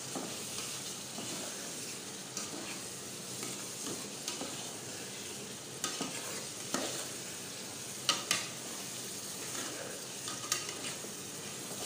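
Metal spoon stirring a pot of tomato-and-onion stew as it sizzles steadily, with the spoon scraping and knocking against the metal pot several times in the second half.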